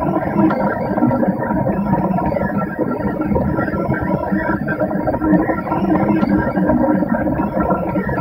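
Delta 3D printer running while it prints in clay: its stepper motors whine in quick rising and falling glides as the print head moves, over a steady mechanical hum.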